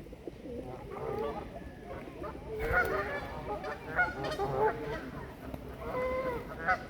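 A flock of waterfowl calling over one another as they are fed, many overlapping honking calls that grow busier from about halfway in, with a few louder sharp calls standing out.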